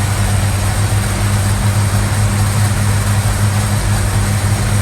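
Valiant Charger engine idling steadily with an even low hum, just refilled with fresh oil and running after a choked start.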